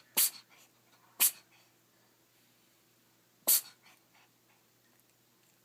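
A cat sneezing three times: two short, sharp sneezes about a second apart, then a third about two seconds later.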